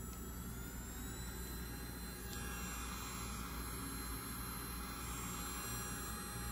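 Electric nail drill running steadily, its handpiece motor giving a quiet, steady whine. About two seconds in, a hiss joins it and stays.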